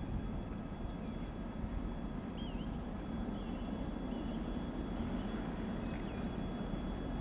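Distant low rumble of an approaching diesel locomotive over steady background noise, with a few faint chirps and a thin high whine that comes in about three seconds in.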